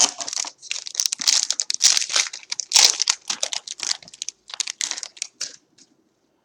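A 2014 Topps Valor football card pack wrapper crinkling and tearing as it is opened by hand, a long run of crackles that thins out about five and a half seconds in.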